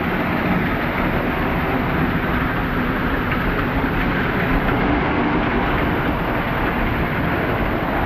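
Waterfall water pouring and splashing close by, a loud steady rush.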